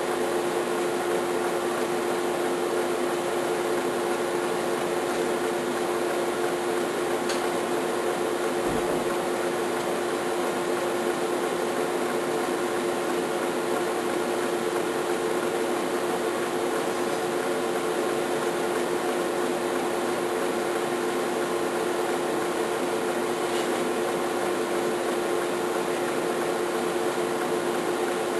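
Laser welding workstation running with a steady hum that holds a constant mid-pitched tone, as the XY table traces a circle weld.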